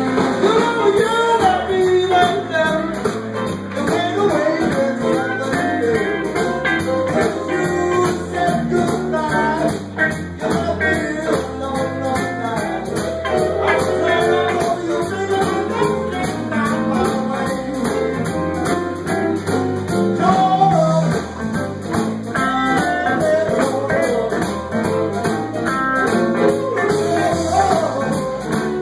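Live blues band playing, with electric guitars, bass, drums and keyboard, and a wavering lead melody over the top.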